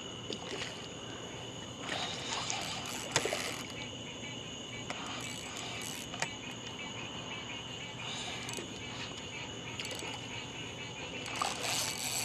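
Steady high-pitched chorus of night insects, crickets trilling without a break, with a few brief scuffs and clicks over it, the loudest near the end.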